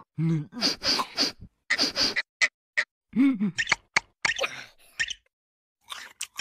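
Cartoon larva characters making wordless vocal noises: a rapid string of short gasps, squeaks and grunting yelps with quick rising-and-falling pitch, stopping about five seconds in.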